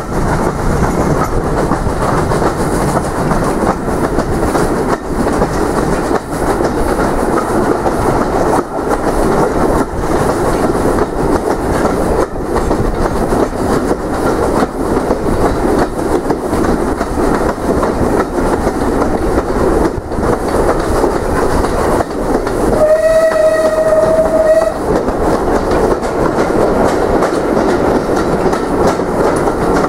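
Train running along the line, a steady rumble with wheels clicking over the rail joints. About three quarters of the way through, the train sounds a single steady-pitched warning blast for about two seconds.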